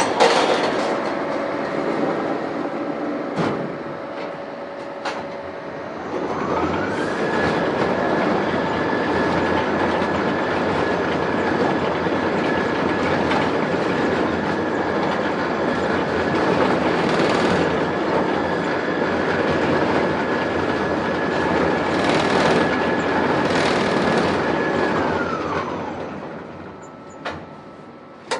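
Industrial lift riding with a loud, rattling mechanical noise. About six seconds in its motor whine rises as the car gets under way, holds one steady pitch through the long travel, then drops away near the end as it slows, with a few sharp clunks at the start and at the stop.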